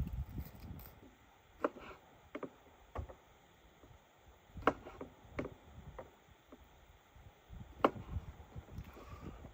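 Scattered sharp cracks and knocks, about six in all and irregularly spaced, the loudest near the end, over a low rumble.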